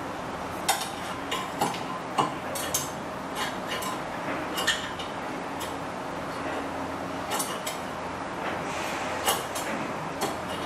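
Irregular sharp metallic clicks and clinks of small hand tools and a metal part being handled at a bench vise while a hinge pin is made, over a steady background noise. They come in a quick cluster over the first few seconds, pause, then return a few more times near the end.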